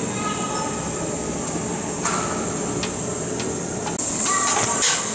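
Workshop noise in a metalworking hangar: a steady hiss with scattered sharp metallic clicks and taps. After a cut about four seconds in it gets louder, with a short burst of rattling clicks.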